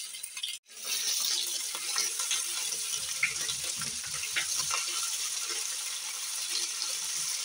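Ginger-garlic paste sizzling in hot oil with browned onions in a wok, stirred with a silicone spatula: a steady hiss with small crackles. The sound drops out for a moment just over half a second in.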